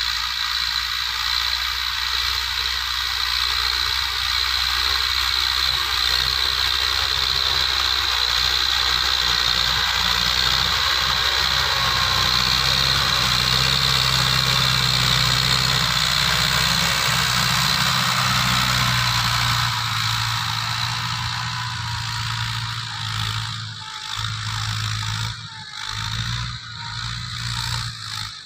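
Massey Ferguson 185 tractor's four-cylinder diesel engine running steadily under load while pulling a rotary tiller through dry soil, with the churning of the tiller. It grows louder as the tractor passes close by and fades as it pulls away in the last few seconds.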